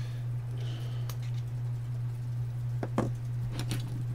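A few light knocks and clicks of hand tools and small parts being handled on the workbench, the sharpest about three seconds in, over a steady low hum.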